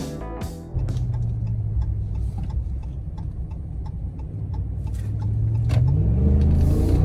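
Side-by-side UTV engine running steadily at low revs, then revving up with a rising pitch about six seconds in.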